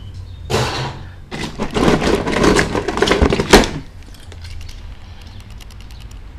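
Small toy cars clattering and rattling against each other as a hand rummages through a box of them, with a sharp click about three and a half seconds in, then a few light clicks.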